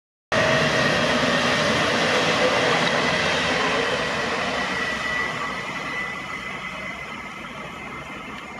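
An EN62A electric multiple unit (Pesa Elf 2) passing through the station: a loud rush of wheel and running noise with a steady high tone, fading as the train draws away.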